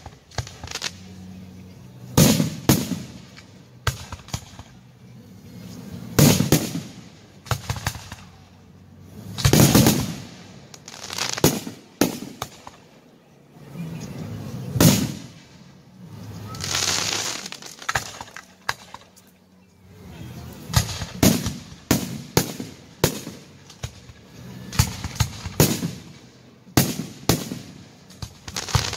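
Aerial firework shells bursting, a series of booms with echoing tails about every one to two seconds. The booms come in quicker clusters in the later part, and a longer crackling hiss sounds around the middle.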